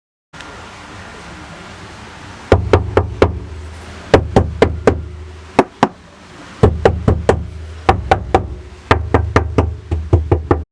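Knuckles rapping on the body panels of a 2012 Corvette Grand Sport in a knock test: sharp knocks in quick groups of two to five, each with a short low boom as the panel resonates, the test showing how much sound deadening the panel has.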